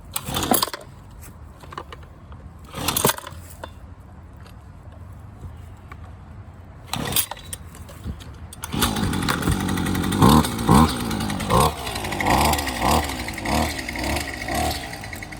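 Husqvarna 128LD string trimmer's small two-stroke engine being pull-started. There are three short bursts, then it catches about nine seconds in and is revved up and down with repeated throttle blips.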